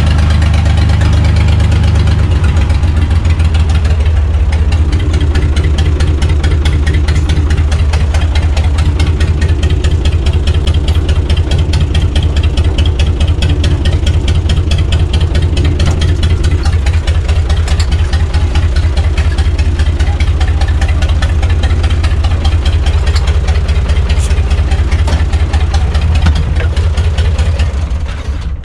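UTB U445 DT tractor's diesel engine running steadily with a deep, fast-pulsing rumble, heard from inside the cab, with no muffler on its exhaust. It is shut off near the end and dies away.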